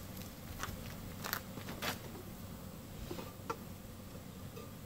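A few faint, scattered clicks and knocks as a cast-iron Dutch oven and its lid are handled on a burner stand, over a low, steady background.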